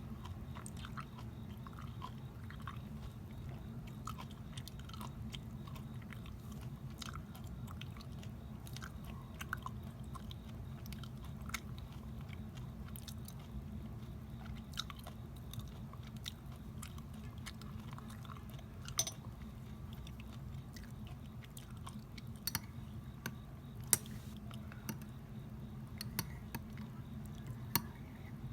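Close-miked chewing and biting of homemade grapefruit preserve, with scattered small wet clicks and crunches throughout, over a steady low background hum.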